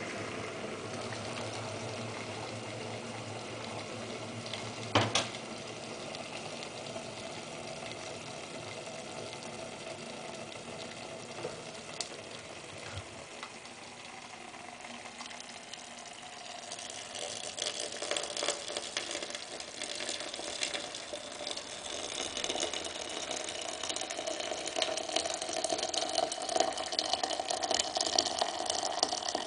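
Arzum Çaycı electric Turkish tea maker humming with the water on the boil, then a sharp click about five seconds in as the hum stops when the kettle is lifted off its heating base. From a little past halfway, hot water is poured from the kettle's spout into the steel teapot, splashing louder toward the end.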